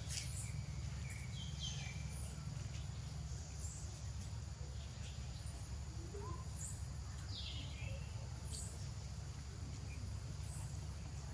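Forest background sound: a steady low rumble under scattered short, high chirps and calls.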